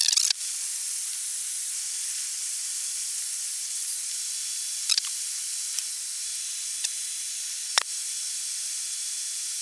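Steady high-pitched hiss of Airbus A320 flight-deck background noise during a taxi, with a few faint clicks about five to eight seconds in.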